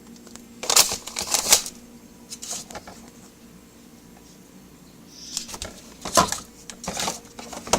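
Food containers and packaging being handled in a refrigerator: bursts of rustling and sharp clicks and knocks. A faint steady low hum runs underneath.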